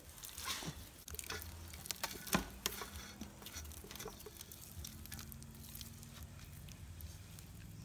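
Hands pulling a lump of pounded sticky rice dough out of a steel pot: faint, wet sticky smacking and crackling clicks, busiest in the first three seconds and thinning out after.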